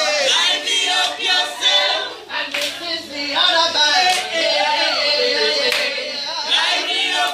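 A group of voices singing together, with sharp hand claps here and there over the singing.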